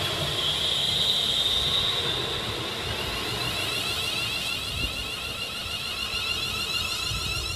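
ScotRail Class 380 Siemens Desiro electric multiple unit moving along the platform, its traction equipment giving a steady high whine over wheel-and-rail rumble.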